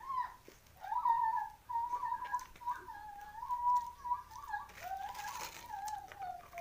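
A continuous high whistle-like tone wavering around one pitch, with crisp crunching of a rice cracker being bitten about five seconds in.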